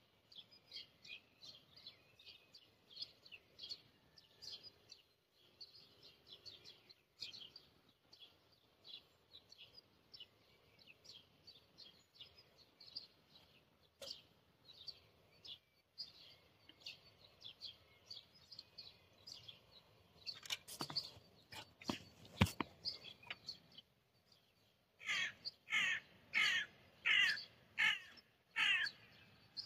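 Birds chirping continuously in short, high notes. Near the end come about six louder, harsher calls in quick succession. A few sharp knocks sound in the middle.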